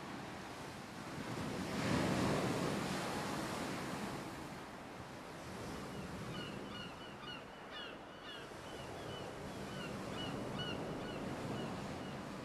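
Surf washing in: a steady rushing noise that swells about two seconds in. Short, high bird chirps repeat through the second half.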